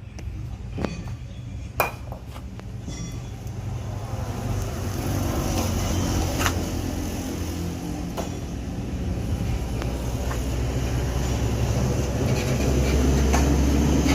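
A low, steady engine rumble that grows louder over the few seconds, with a few sharp metallic knocks.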